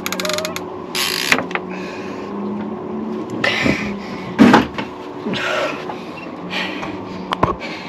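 Fishing reel being cranked under load while fighting a fish, its gears whirring in short spells, with a quick run of clicks at the start and a low hum underneath.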